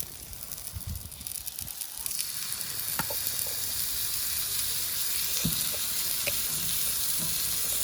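Food sizzling on high heat, a steady hiss that swells about two seconds in and then holds, with a few light clicks.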